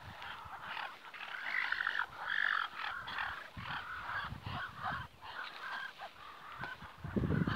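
Muscovy ducks calling softly: many short chirping, trilling calls overlapping in a rapid chatter. A louder low rumble sets in near the end.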